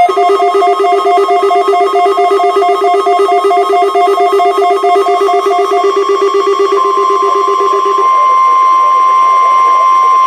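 A weather radio receiver's alert alarm beeping rapidly in several pitches over the National Weather Service warning alarm tone, triggered by the weekly test. The beeping stops about eight seconds in, leaving the steady, high warning tone alone.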